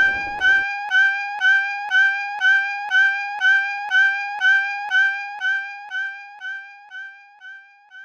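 Cartoon railroad crossing warning alarm ringing about twice a second, one pitched tone per stroke, fading out over the last few seconds after the train has cleared. A passing train's rumble cuts off about half a second in.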